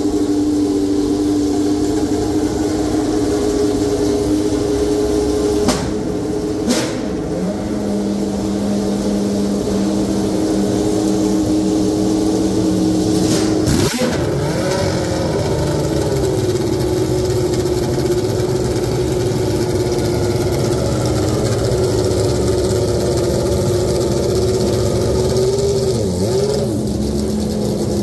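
Classic Benetton Formula One car's Ford V8 engine running at a steady idle after start-up, its pitch shifting a few times, with a few sharp cracks about a quarter and half way through.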